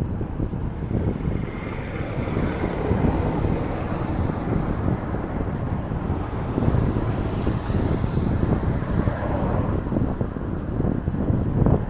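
Wind buffeting the microphone while cycling: a steady, rough low rumble.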